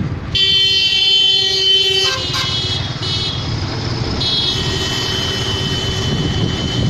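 Vehicle horn sounding over a truck's engine and road rumble: a blast of about two seconds, a shorter one, then another long blast a second later.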